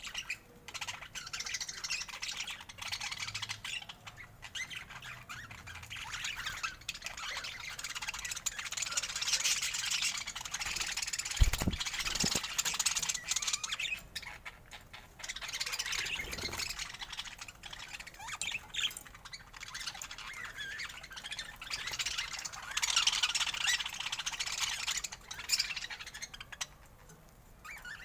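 Budgerigars chattering and squawking, a continuous stream of quick warbles and harsh calls, with a single thump about midway.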